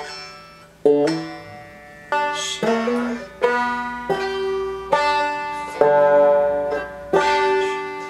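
Banjo strummed one chord at a time, about seven strums at uneven intervals, each left to ring out before the next, with the chord changing between strums: the slow, halting practice of a beginner learning to play.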